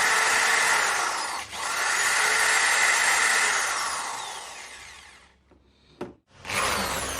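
Electric motor of a JLD 3301 polisher-drill running at speed, then winding down and stopping about five seconds in. After a click it starts up again near the end.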